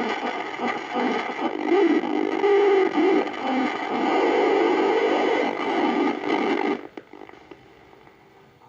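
Samsung CS14F10MJ CRT television's speaker putting out harsh, noisy audio with no clear speech, the symptom of a fault in the set's sound section. It cuts off suddenly about seven seconds in, leaving a faint hiss.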